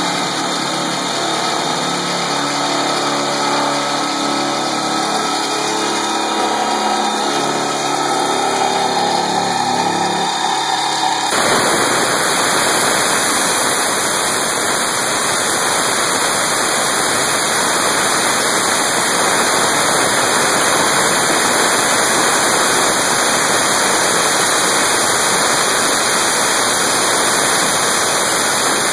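CNC-converted Sieg X3 milling machine running, its spindle and stepper-driven axes whining in several shifting tones as an end mill cuts a metal plate. About eleven seconds in, a loud steady hiss of compressed air from a hand-held nozzle aimed at the cutter starts suddenly and drowns out the machine.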